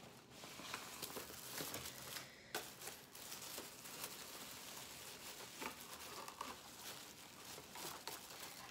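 Wig packaging crinkling and rustling as it is handled, in uneven small crackles and ticks.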